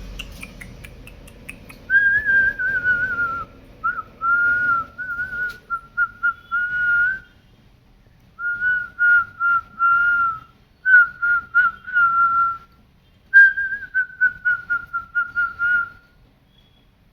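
A pet parrot whistling: clear whistled phrases at one pitch, some held and gently falling, others broken into quick repeated notes, in about four bursts with short pauses between them.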